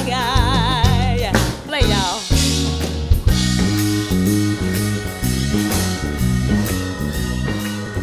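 A soul singer holds a long vibrato note with a live band, sliding down off it about two seconds in. The band then plays on without vocals: an electric bass line under drum kit hits and a held high note.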